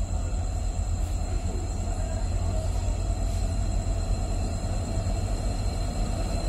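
Steady low rumble of an express passenger train approaching the station, its locomotive still some way off down the line.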